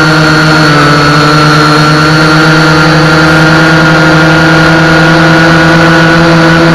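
Global Drone X183 quadcopter's motors and propellers whining at a steady pitch while it climbs, heard close up through its onboard camera's microphone.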